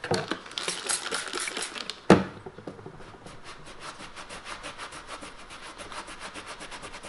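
Cloth rubbing back and forth over a pair of steel pliers, wiping off old congealed preservative oil. Uneven strokes at first, a sharp click about two seconds in, then a fast, even rubbing rhythm.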